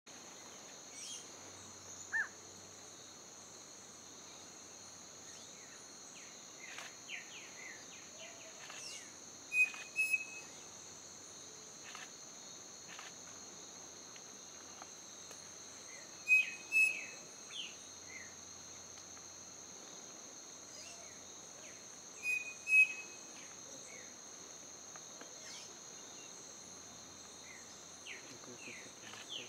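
Striped cuckoo singing its two-note whistled song, three times about six seconds apart, over a steady high hum of insects.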